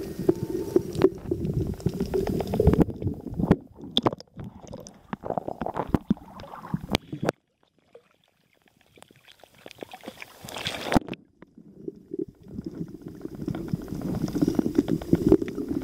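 Water sloshing and rumbling as heard underwater around a swimming snorkeler, with irregular knocks. It drops almost to silence for a second or two a little past the middle, and the rumble comes back near the end.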